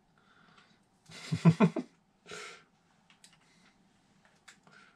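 A brief vocal sound about a second in, then a breath, then a few faint clicks of plastic LEGO pieces being picked up.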